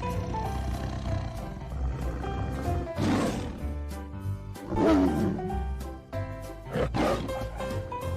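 Tiger roaring three times, about three seconds in, again near five seconds (the loudest), and briefly about seven seconds in, over background music.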